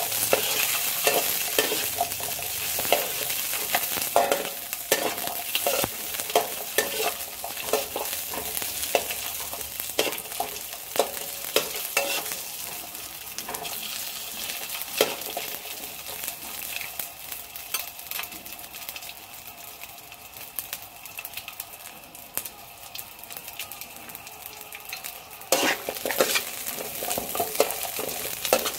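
Whole garlic cloves and red chilies sizzling in oil in a steel wok, with a metal spatula scraping and tapping against the wok as they are stirred. The sizzle eases off in the middle and picks up again near the end.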